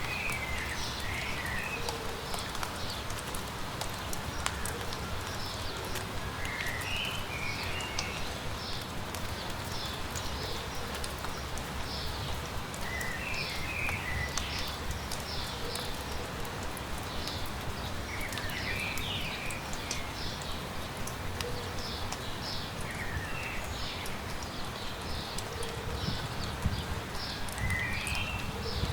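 Steady light rain with footsteps on a garden path. A bird repeats a short song phrase about every six seconds, with fainter high chirps from other birds in between.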